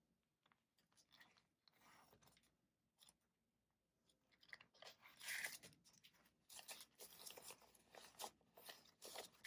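Faint rustling and crinkling of paper banknotes and a clear plastic binder envelope being handled, starting about four seconds in after a near-silent stretch.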